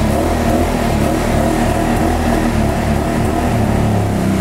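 Honda V45 Interceptor's V4 engine running, its revs rising and falling unevenly with the throttle, then settling into a steadier idle near the end. It is running on the gasoline in its tank.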